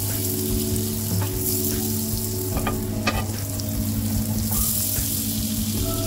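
Butter sizzling steadily as it melts and foams in a preheated grill pan, with a few faint clicks as metal tongs push it across the pan.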